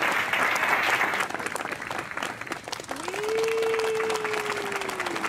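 Congregation applauding, the clapping thinning out about a second in. Later a single long held note swoops up, holds, and slowly sinks near the end.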